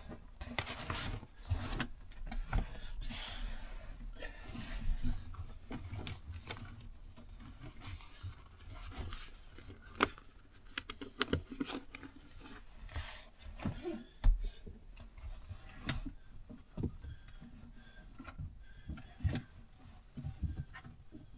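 Irregular handling noise of manual work: clicks, rubbing and light knocks of tools and parts, with a sharper, heavier knock a little after halfway.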